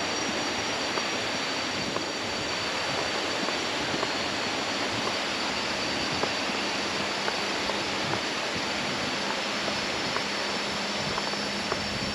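Waterfall rushing: a steady, unbroken hiss of falling water, with a thin steady high-pitched whine of insects above it.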